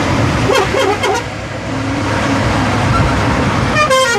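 Steady road traffic noise from passing vehicles. Near the end a multi-tone telolet horn starts a stepped melody of several notes.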